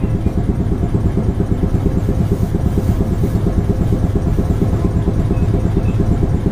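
Steady low rumble with a fast flutter inside the cabin of an Iyo Railway 2000 series tram, a former Kyoto city tram.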